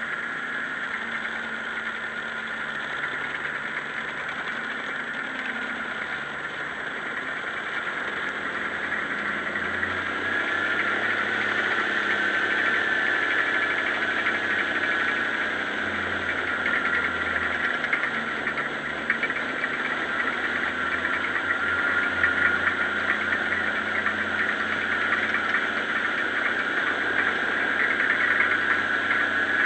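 Tracked snow-trail groomer's engine running steadily under load as it tows a grooming drag through snow, its low note rising and falling a little, under a loud steady high-pitched rushing noise.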